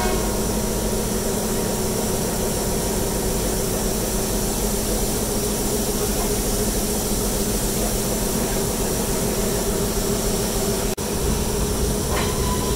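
Sri Lanka Railways Class B1A steam locomotive standing at the platform in steam: a steady hiss with a low rumble underneath.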